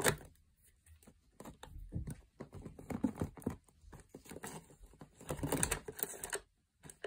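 Acrylic paint tubes with plastic caps clicking and clattering against each other and the sides of a plastic storage bin as a hand rummages through them. Irregular clusters of light clicks, stopping shortly before the end.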